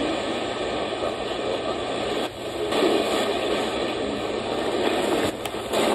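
Retekess V115 portable radio's speaker tuned to a shortwave broadcast from Cuba at 6.000 MHz in the 49 metre band. The station is weak and mostly buried in a steady hiss of static, with a brief dip about two seconds in.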